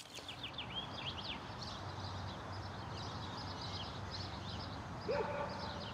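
Outdoor ambience: small birds chirping repeatedly over a steady background hiss, with a brief louder pitched call about five seconds in.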